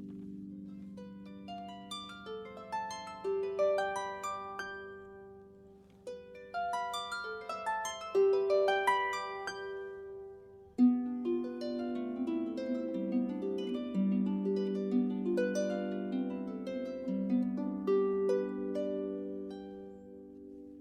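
Solo harp playing: rising runs of plucked notes that ring on over held low tones, then a fuller passage of chords from about halfway through.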